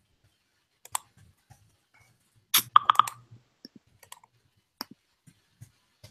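Keystrokes on a computer keyboard while a chat message is typed: scattered single clicks, with a quick run of keys around the middle.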